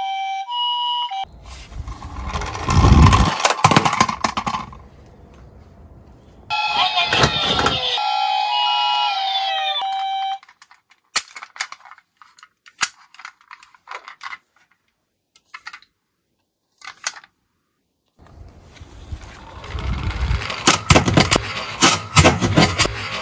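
A two-tone ambulance siren alternates high and low and cuts off about a second in. A loud rushing noise follows, then a second electronic siren-like sound with sliding tones from about six to ten seconds, with scattered clicks after it. From about eighteen seconds a die-cast Tomica toy ambulance clatters and rattles as it rolls down a wooden-board slope and jumps between boards.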